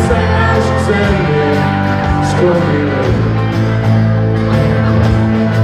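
Live band playing an instrumental stretch of a song, with acoustic guitar, bass and keyboard.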